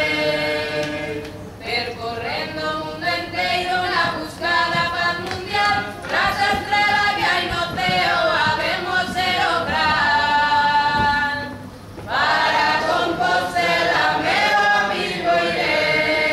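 A choir singing a slow song in long held phrases, with a short breath-break about twelve seconds in.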